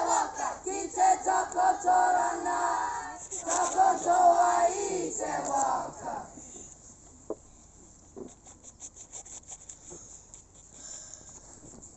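A group of school students chanting in unison in a Māori welcome performance, loud and pitched, stopping about six seconds in. After that it is quiet apart from faint scattered clicks.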